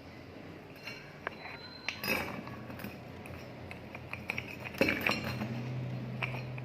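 Small metal parts clinking and knocking as they are handled, with sharper knocks about two seconds in and near five seconds. Just after that a small motor starts running with a low, steady hum.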